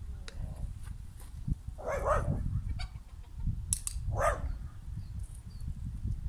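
Two short animal calls about two seconds apart, over a steady low rumble.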